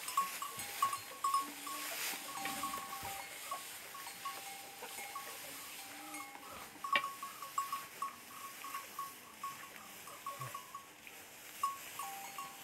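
Small bells on a pair of bullocks clinking in an irregular patter as they walk round treading harvested crop to thresh out the grain. A single sharp knock comes about seven seconds in.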